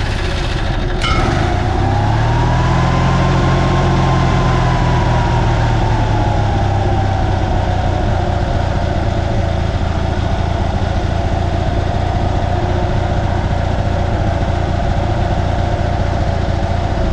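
Onan 4000 Emerald Plus RV generator's air-cooled engine, just started, with a click about a second in. Its speed rises over the first few seconds, then eases back and holds steady. It keeps running with the start button released, the sign that the cleaned-out oil pressure switch is working again.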